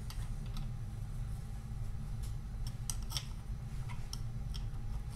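Light, irregular metallic clicks of an open-end spanner working a 5/16 nut off a crankcase bolt, most of them in the second half. A steady low hum runs underneath.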